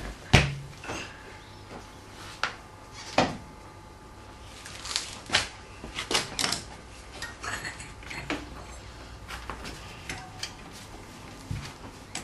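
Metal clinks and knocks of tools and parts being handled while a motocross bike's front wheel is fitted: a dozen or so sharp, irregular strikes, the loudest about half a second in.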